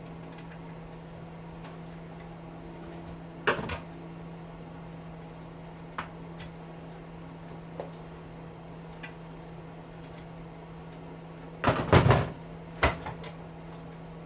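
Scattered knocks and clatter of hedge-trimmer parts being handled during disassembly, a few single knocks and then a louder cluster of knocks about twelve seconds in, over a steady low hum.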